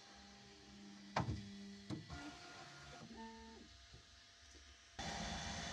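Bambu Lab P1S 3D printer running its Z-axis calibration: stepper motors hum in steady tones, with two sharp clicks and a few short stepped whines as the axes move. Near the end a louder steady rushing noise cuts in suddenly.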